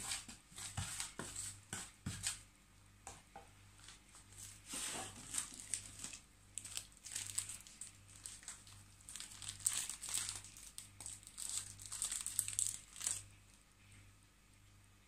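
Plastic bag crinkling in irregular bursts as it is handled and opened, heaviest a few seconds before the end. At the start a wooden spoon scrapes and taps in a plastic bowl.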